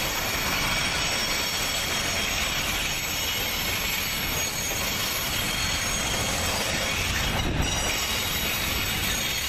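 Container freight train's flat wagons rolling steadily past, their steel wheels running on the rails.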